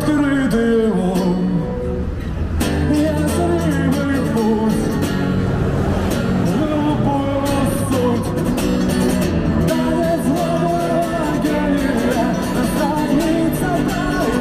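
Music: a song with a singing voice and guitar accompaniment.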